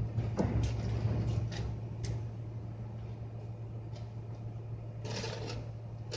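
A machine running with a steady low hum, with a few light clicks and knocks and a short clatter about five seconds in.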